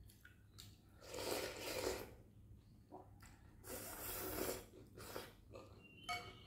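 A person slurping rice noodles and broth from a spoon: two long slurps of about a second each, then a short clink near the end.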